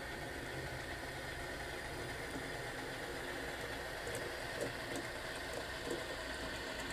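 HO-scale model diesel switchers running past with a train of log cars: a steady engine-like drone, with a few light clicks and rattles as the locomotives go by between about four and six seconds in.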